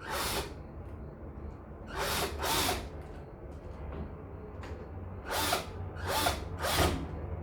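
Power drill driving a mounting screw in about six short bursts, each a fraction of a second long: the screw is being run through to the door's outside handle.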